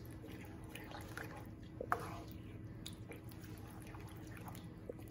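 Wooden spoon stirring beaten eggs into a wet mixture of soaked dried fruit in a pan: faint wet squelching with soft scrapes and ticks, and one slightly louder click about two seconds in.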